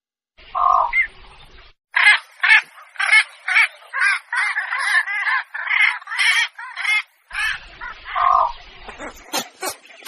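Blekok heron calls played as a bird lure: hoarse squawks, one call and then a rapid run of about two calls a second, with another call a little later. Sharper, higher notes come in near the end.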